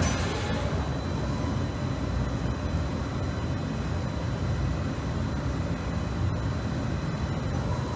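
A CHIRON FZ 08 S 5-axis machining centre running steadily, a low even hum with faint thin high whines held over it.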